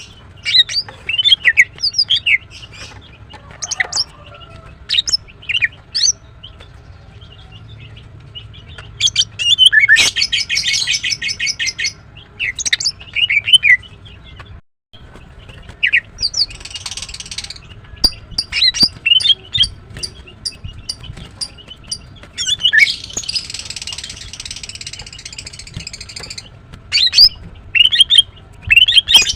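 Female greater green leafbird calling: a run of short, sharp, high chirps broken three times by a rapid rattling trill, the last about three seconds long.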